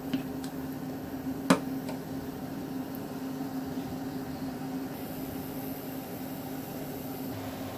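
Palm sugar syrup boiling in a small stainless-steel saucepan on an electric hob, over a steady low hum. The stirring spatula knocks sharply against the pan once, about a second and a half in.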